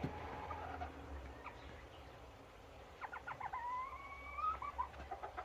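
Serama bantam chickens calling: faint clucks, then about three seconds in a quick run of clucks that leads into one long, slowly rising drawn-out call, with more short clucks near the end.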